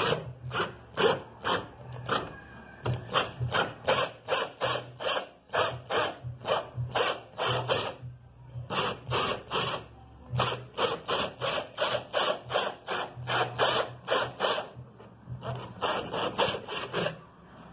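Hand tool being worked back and forth in steady rasping strokes, about two to three a second, pausing briefly twice; a steady low hum runs underneath.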